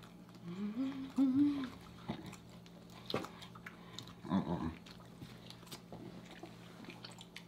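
People chewing birria tacos with wet smacking and lip clicks, and a hummed, rising "mmm" of enjoyment about half a second in. A second short voiced "mm" comes around four seconds in.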